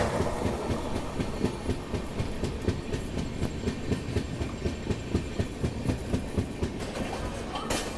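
A Shatabdi Express passenger train running at speed, its wheels clattering over the rail joints in a quick, uneven run of thumps. There is a brief louder hiss near the end.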